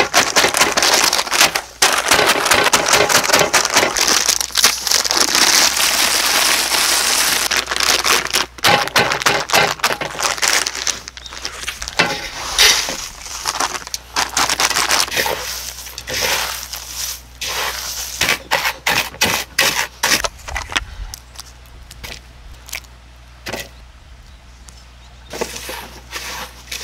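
Sealed bags of Gamjakkang potato snack being pounded and crushed by hand, the crisp sticks crunching inside the crinkling plastic packaging; then the crumbs are shaken out into a glass bowl and stirred by a gloved hand. The sound thins out to scattered small crackles near the end.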